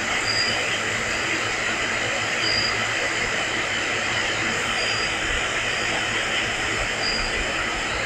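Steady hiss and background noise from an EVP recording played back through a phone's speaker, with no voice on it during this gap between questions. A short high beep recurs about every two seconds.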